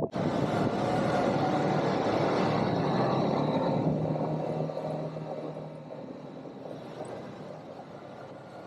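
ATV engines running loud, starting abruptly, then fading away over a couple of seconds about halfway through, as the quad bikes move off.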